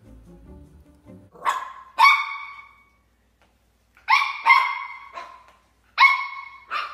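A small dog barking in short, high-pitched yaps: two about a second and a half in, then a quick run of four or five more from about four seconds on.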